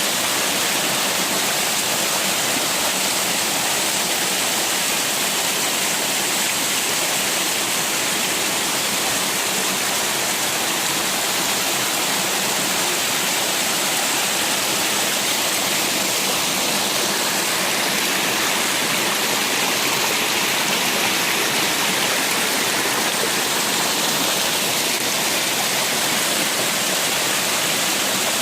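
Small waterfall splashing down, a steady rushing hiss of falling water.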